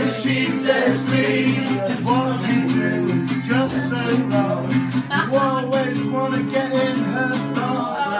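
Acoustic guitar strummed in a steady rhythm, with a group of voices singing along.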